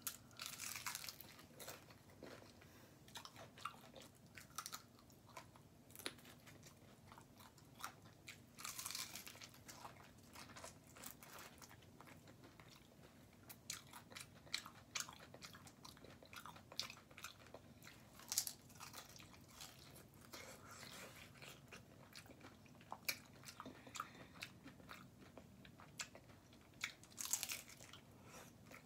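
A person eating tacos close to the microphone: faint chewing and crackling throughout, with four louder crunching bites, about a second in, around nine and eighteen seconds, and near the end.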